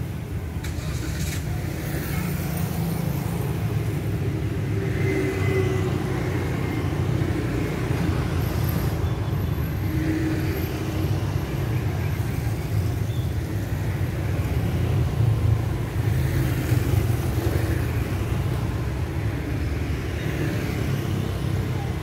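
Road traffic passing by: cars and motorbikes driving along the street, a continuous low engine and tyre rumble that swells a little as vehicles come close.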